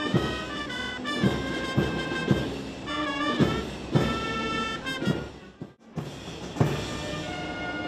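Military brass band playing a national anthem, brass with drum beats; the music drops away briefly about six seconds in, then goes on.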